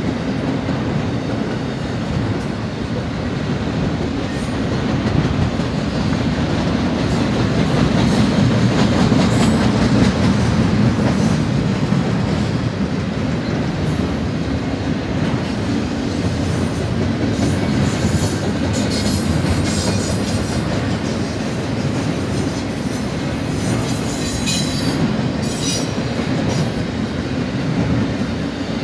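Double-stack intermodal freight train's well cars rolling past: a steady heavy rumble and clatter of steel wheels on the rails, with brief high wheel squeals now and then in the second half.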